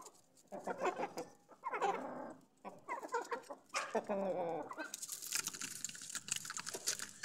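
Aseel chickens calling, several short drawn-out clucks close by. From about five seconds in, a close scuffle of flapping wings and rustling feathers takes over.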